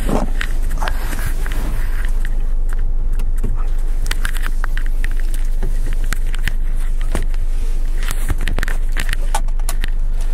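Handling noise from a dropped phone being picked up and put back in its holder: scattered clicks and knocks, a cluster of them near the end. Under them runs a steady low rumble inside the cabin of a Honda Step WGN.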